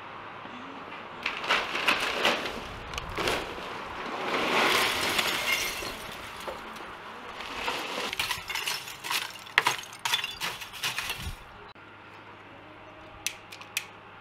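Lump charcoal clinking and rattling with a glassy sound as it is handled in a kamado grill's firebox. There is a longer scraping swell a few seconds in, a dense run of sharp clinks in the second half, and a few quick clicks near the end.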